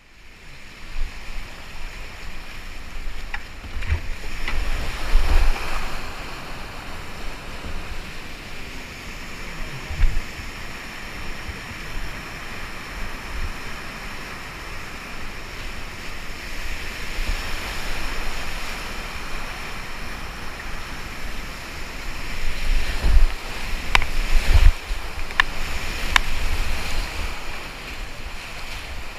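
Whitewater rapids rushing close around a kayak, with low buffeting thumps on the microphone. The rush swells loudest about five seconds in and again near the end, where a few sharp knocks come through.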